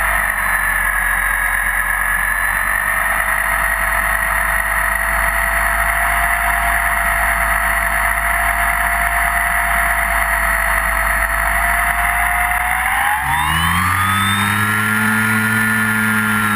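Electric motor and propeller whine of a Multiplex FunCub model plane heard from its onboard camera, with wind rush over the airframe. The whine holds steady, then rises sharply in pitch about 13 seconds in as the throttle opens, and eases down a little near the end.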